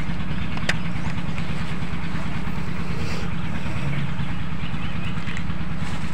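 An engine running steadily at an even pitch, with a single light click under a second in.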